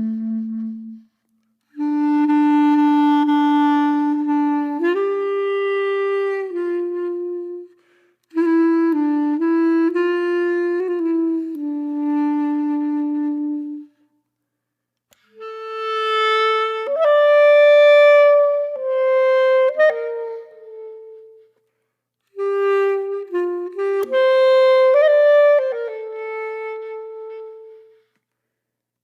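Music: a single woodwind line playing a slow melody of long held notes, in four phrases with brief silences between them.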